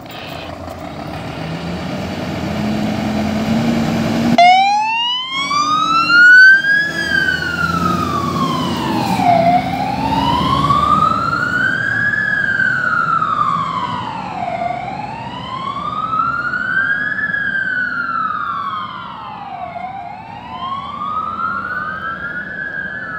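Scania fire engine's diesel engine pulling away, then its siren switches on suddenly about four seconds in. The siren wails slowly up and down, a full rise and fall about every five seconds.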